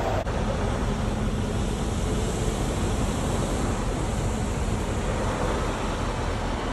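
Steady, continuous rushing noise of a heavy work truck running close by, with street traffic.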